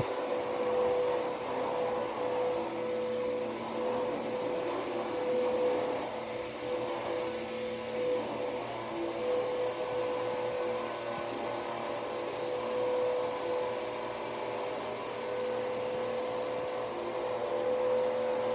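Hoover vacuum cleaner running steadily: a constant motor hum and whine over a rush of air.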